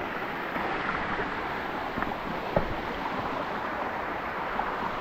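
Steady rush of a waterfall's falling water, with a single short knock about two and a half seconds in.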